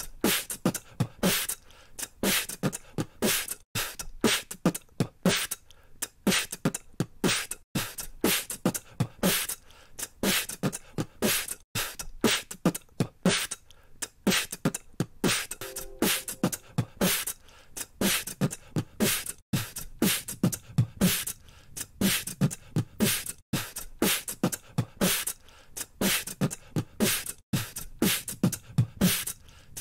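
A recorded beatbox beat of vocal kick drums, hi-hats and snares in a steady rhythm, built from three takes layered centre, left and right to sound bigger and wider. From about two-thirds of the way through, the kicks get a heavier low thump as the 150 Hz area is boosted by EQ.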